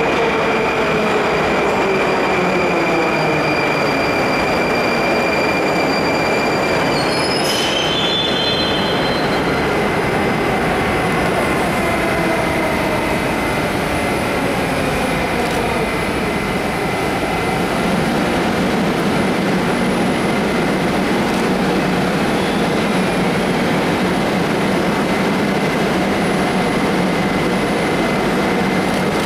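Moscow Metro 81-740/741 articulated train braking into the station, its traction drive whine falling in pitch with a thin high squeal. It comes to a stop about seven seconds in with a brief high burst of sound, then stands with its equipment humming steadily.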